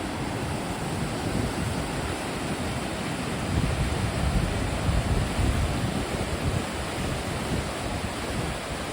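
A waterfall rushing steadily, with wind buffeting the microphone in low gusts.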